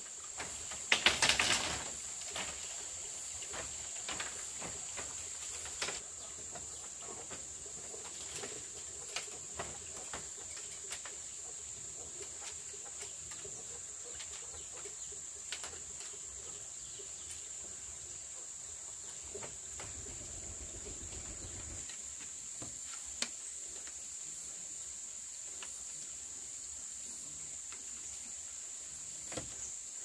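Steady high-pitched drone of insects such as cicadas or crickets. A quick run of sharp knocks comes about a second in, and scattered single clicks follow.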